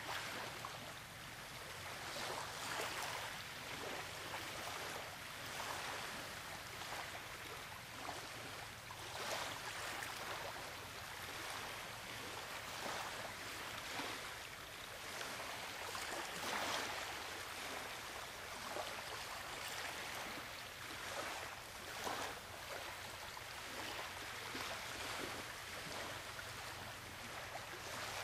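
Steady rushing outdoor noise that swells and ebbs every second or two.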